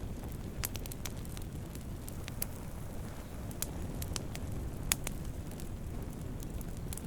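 Wood fire burning with a steady low rumble and scattered sharp crackles and pops, the sharpest about five seconds in.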